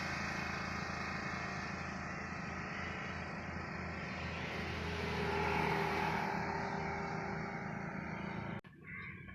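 Steady rumble and wind-like noise of a vehicle on the move, swelling a little around the middle and cutting off suddenly near the end.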